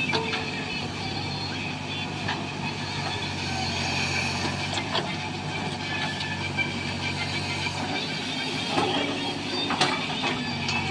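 Heavy diesel engine running steadily, with a few sharp metallic knocks and clanks over it.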